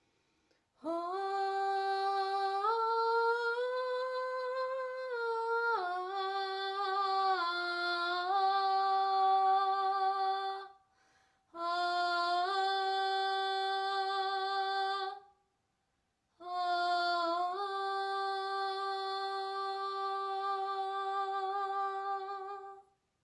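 A woman's voice humming a slow, wordless melody in three long breaths, holding steady notes and stepping between a few pitches, with short pauses between the phrases.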